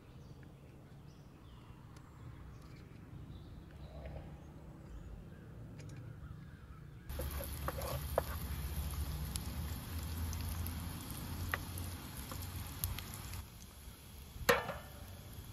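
Faint bird calls over quiet outdoor ambience, then from about halfway a steady sizzle of onions frying in an aluminium pot on a portable gas stove, with a few light clicks. Near the end, one sharp metallic clang with a short ring as a large aluminium pan is set down on a gas burner.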